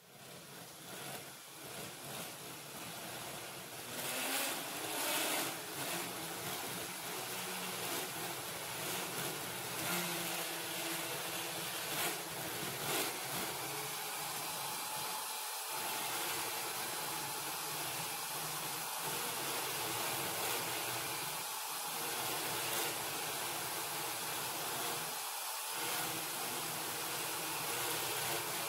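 Corded electric drill running steadily, boring into the sheet-steel door pillar of a 1929 Ford Model A body. It builds up over the first few seconds, then runs without change until it stops at the end.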